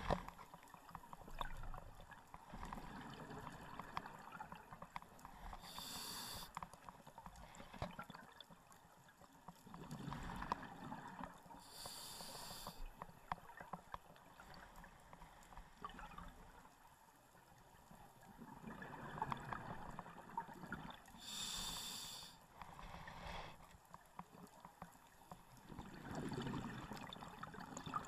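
Scuba regulator breathing, heard through a GoPro's underwater housing: a short hiss on each inhale and a longer bubbling rush on each exhale, a slow breath about every eight seconds, three or four breaths in all. A sharp click right at the start.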